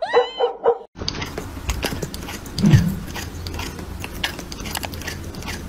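A cat crunching dry kibble close up: a rapid, dense run of crisp crunching clicks, with one louder, deeper thump about two and a half seconds in. Before it, in the first second, a few short high animal cries.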